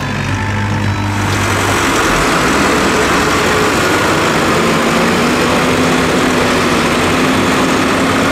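Diesel engine of a loaded dump truck pulling away, running steadily with its pitch creeping up slightly; the sound changes about a second in.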